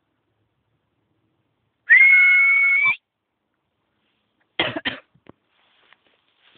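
A loud, steady high whistle held for about a second, then two quick coughs close to the microphone.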